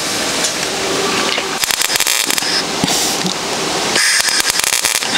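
Stahlwerk MIG 175 ST IGBT MIG welder arc crackling and sputtering, with two louder stretches of rapid crackle, about a second and a half in and again near four seconds. The welder is stuttering rather than running smoothly because its pulse setting had been knocked out of place.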